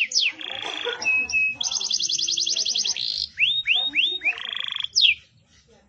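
Domestic canary singing: a quick string of falling sweeps, a fast trill of repeated notes, a few rising slurs and a buzzy roll. The song stops about five seconds in.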